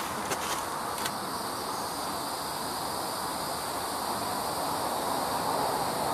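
Steady outdoor ambience of insects droning, with a few footsteps in the first second.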